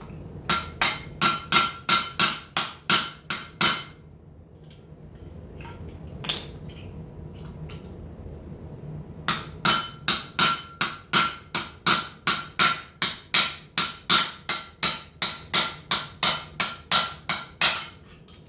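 Hammer blows on a steel punch set on a bolt stuck in a socket, each with a clear metallic ring. They come in quick runs of about three a second: a dozen or so blows, a single blow, then a longer run of about two dozen, driving the bolt out.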